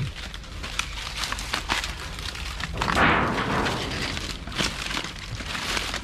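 Footsteps crunching and crackling through dry fallen palm fronds and leaf litter, with a louder rustling swish of fronds about three seconds in.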